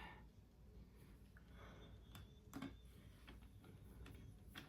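Near silence with a few faint, scattered clicks of a precision screwdriver and a tiny phone screw being driven into a bracket.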